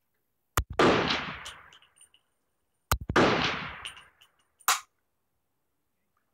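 Two shots from a World War II M1 carbine in .30 Carbine, about two and a half seconds apart, each followed by about a second of fading echo. A brief sharp knock follows near the end.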